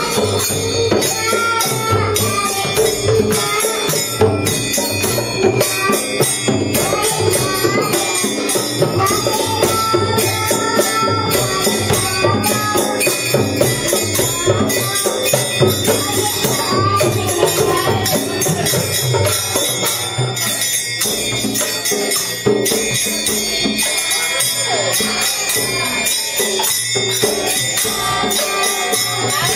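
Devotional kirtan chanting: voices singing over a steady beat on a mridanga and a rope-tuned barrel drum, with small hand cymbals (kartals) jingling in time.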